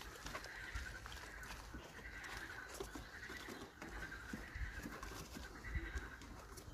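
Faint animal calls in the background, a steady chirring that runs on without a break, with soft scattered knocks and clicks.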